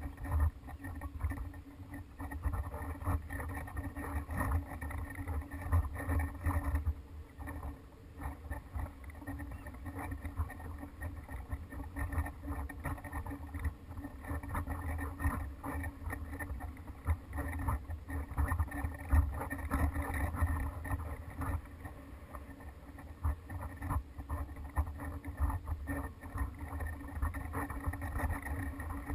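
Wind buffeting the microphone of a GoPro hanging from a kite line: an uneven low rumble that swells and falls in gusts, with a faint steady hum above it.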